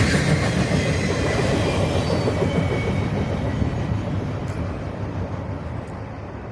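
Norfolk Southern work train rolling past on the rails, the rumble and rattle of its wheels and cars fading steadily as it moves away.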